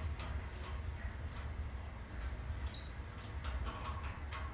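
Small metal clicks and taps from the brass parts of a skeleton clock, unevenly spaced, as the eccentric clamps on its frame are worked loose by hand, with a couple of brief high pings. A steady low hum runs underneath.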